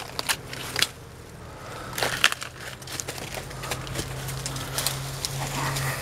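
Dry leaves, twigs and brush crackling and crunching as someone pushes on foot through thick undergrowth, with scattered sharp snaps, the loudest about two seconds in.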